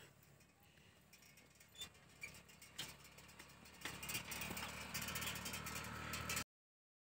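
Faint clicks and light clattering from a bicycle being scooted along a paved road, over a low hum. A few single clicks come first, then a denser patch of rattling, and the sound cuts out suddenly shortly before the end.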